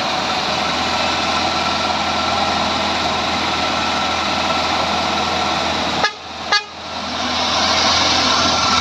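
Wrecker's engine running at raised revs to drive its hydraulic crane, a steady loud mechanical drone with a whine over it. The sound dips briefly with two clicks about six seconds in, then comes back louder.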